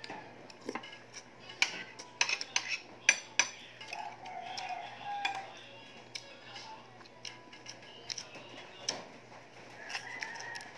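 Eating by hand from a plate of rice and dried fish: fingers and food clicking and scraping against the plate. The clicks come thick and sharp from about one and a half to three and a half seconds in, then sparsely.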